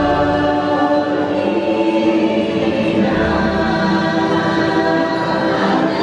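Choral music: a choir singing long held chords over an instrumental backing, with the chord changing a few times.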